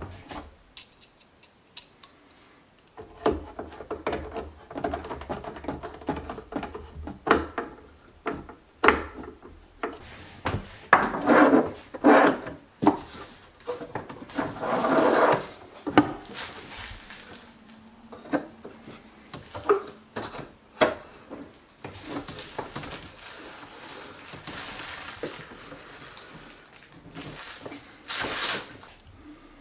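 Irregular knocks, clicks and scraping from objects being handled in a small room, with a denser run of scraping about a third of the way in and a stretch of hissing near the end.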